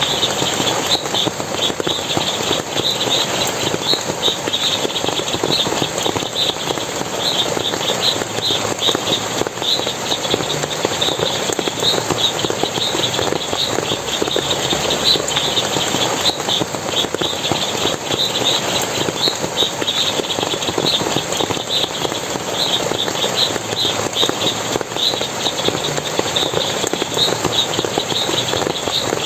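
Steady rush of splashing forest water, overlaid by a dense run of short, high chirps repeating several times a second.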